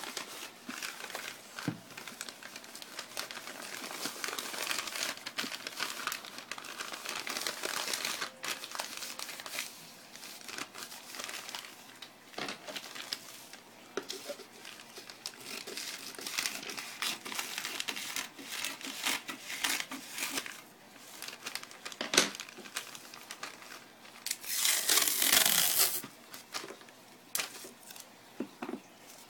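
Newspaper rustling and crinkling as it is folded and wrapped around a heat pack, with small irregular clicks and handling noises. A louder ripping sound lasts about a second and a half near the end.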